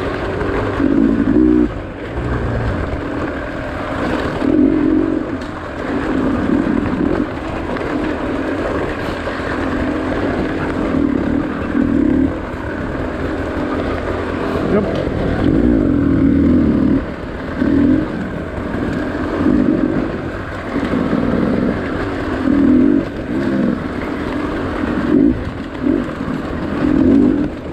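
Dirt bike engine under way on rough trail, the throttle opened and eased off over and over, so the engine note surges and drops every second or two.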